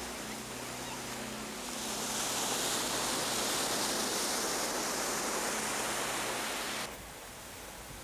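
Sea waves breaking on a shore: the continuous roar of surf, which swells about two seconds in and drops off suddenly near the end.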